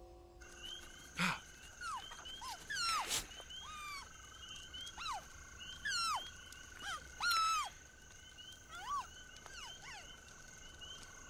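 Night jungle ambience: steady insect drones and rapid chirping under frog-like calls, with repeated whistled calls that drop sharply in pitch. A sharp click sounds about a second in.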